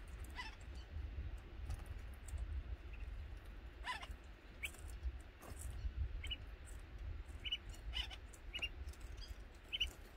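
African red-eyed bulbuls giving short, high chirps scattered through, a few of them falling in pitch, over a steady low rumble.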